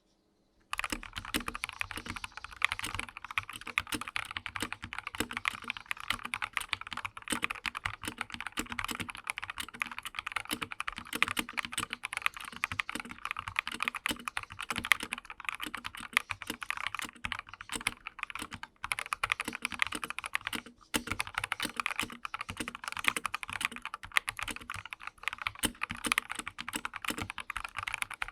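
Typing on a Dareu A87 hotswap mechanical keyboard with SP Star Polaris Grey switches and Akko ASA-profile keycaps, modded with foam under the PCB and plate foam in place of the stock silicone: a steady run of quick keystrokes starting just under a second in, with a brief pause about three-quarters through.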